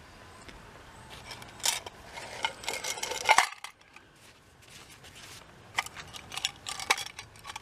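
Tin can and its bent wire stove parts handled by hand: a run of light metallic clinks and knocks, loudest about three seconds in, with another cluster near the end.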